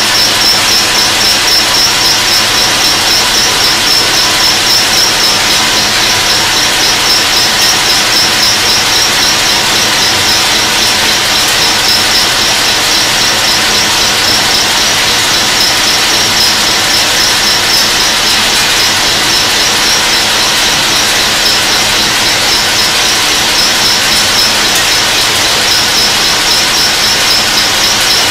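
Burgsmüller L5.4 thread-whirling head cutting the flights of a screw element: loud, steady machining noise with a high, rapidly pulsing whine that is strongest at the start, fades in the middle and returns near the end.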